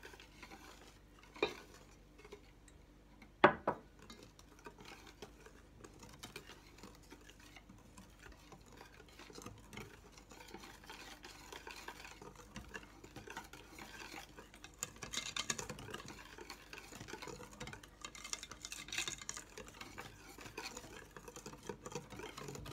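Wire whisk beating thin chocolate cake batter in a stainless steel bowl: fast scraping and clinking of the wires against the metal. There are two sharp knocks against the bowl, the louder about three and a half seconds in, and the whisking grows busier in the second half.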